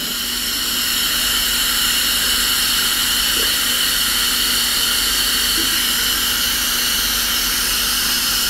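Television static: a steady, loud hiss of white noise, swelling slightly over the first second, with a faint low hum underneath.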